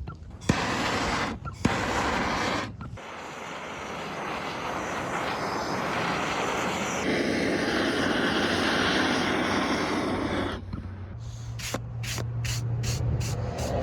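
Torch burning and power sanding on carved wood, heard as a steady loud hiss cut into several short clips. Near the end a low hum with regular ticks about three a second takes over.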